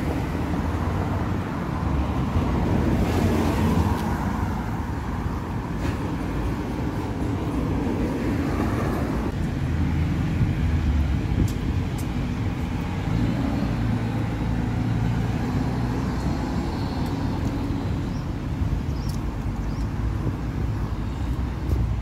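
Road traffic going by steadily: a continuous low rumble of engines and tyres.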